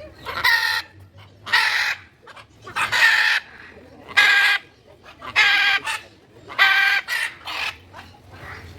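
A large bird calling over and over, a series of loud harsh squawks about half a second each, roughly one a second, with a couple of shorter ones near the end.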